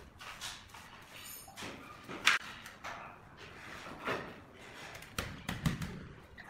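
A trowel scraping through cement mortar, then a large ceramic floor tile set down and shifted into place on the mortar bed: a run of scrapes and knocks, the sharpest about two seconds in, with smaller taps and thuds near the end.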